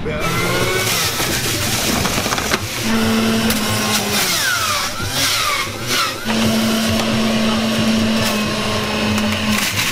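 Electric juicer running as celery stalks and leafy greens are pushed down its feed chute, the motor whirring continuously. A steady hum comes in twice: briefly near the middle, then for about three seconds in the second half.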